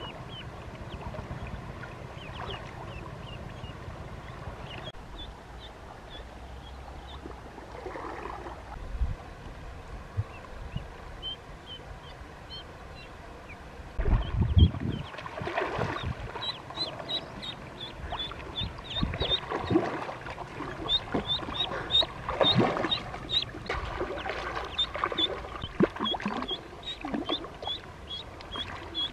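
Ducklings peeping in short high cheeps, a few at a time at first and then many in quick succession through the second half. Water splashes loudly about halfway through as a swimmer moves through the river among them.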